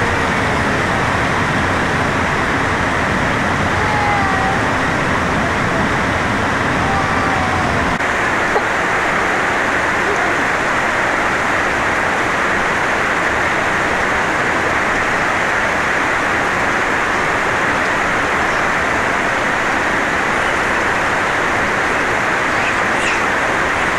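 Steady rush of flowing water, loud and even, whose low rumble drops away about eight seconds in. A few faint short gliding tones sound over it in the first several seconds.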